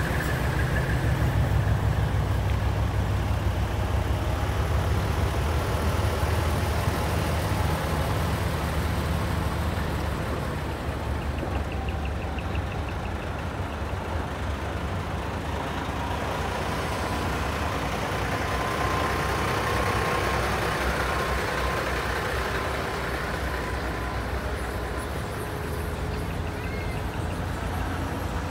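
Large diesel dump trucks driving slowly past one after another, their engines rumbling. The low engine sound is strongest in the first several seconds and then eases a little.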